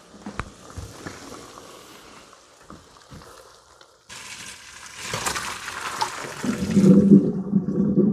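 A pot of hot cooking water and boiled greens poured into a strainer in the kitchen sink. A faint hiss at first, then splashing starts about four seconds in and swells into a loud, low rush of water down the sink for the last second and a half.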